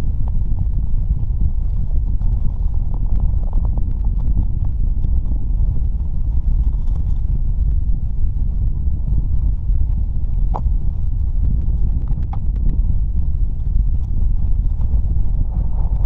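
Strong wind buffeting the microphone in a steady, heavy low rumble, with a couple of faint clicks about two-thirds of the way in.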